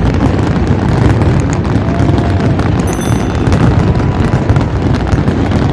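A 50 mm fireworks battery cake going off: a dense, continuous run of loud bangs and crackling over a low rumble, fading out at the very end.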